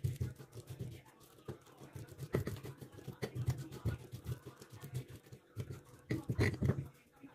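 Stone pestle (ulekan) crushing and grinding boiled chillies, tomato and shallots in a stone mortar (cobek): irregular knocks and scrapes of stone on stone through wet, coarse paste, loudest near the end.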